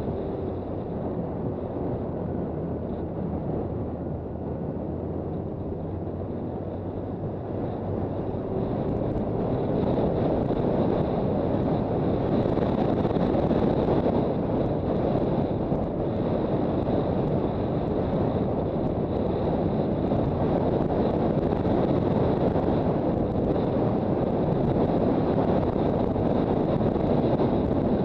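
Wind rushing over the microphone on a moving Honda CB400 Super Bol d'Or motorcycle, with its inline-four engine running underneath. The wind noise grows louder about nine seconds in and then holds steady.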